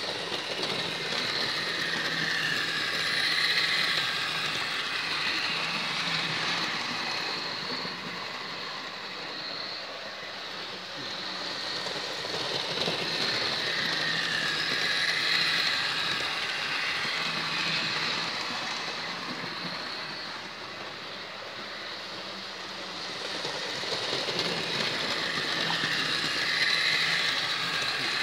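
Hornby OO gauge model locomotive (Henry) running on its track with three coaches: a steady electric motor whir and wheel rumble. It swells and fades in turn about every twelve seconds as the train passes close by on its loop.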